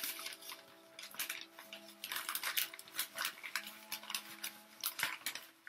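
Plastic plant packaging crinkling and rustling as it is handled and unwrapped, in quick irregular crackles.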